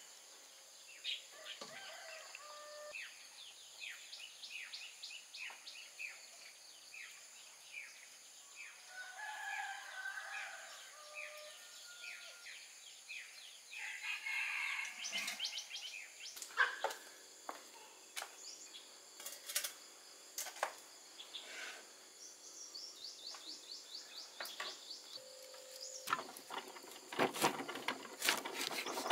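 Rural outdoor ambience: birds calling with short repeated chirps, and chickens, over a steady high insect drone. Near the end, a knife cuts into a pineapple on a wooden board with a series of knocks and clicks.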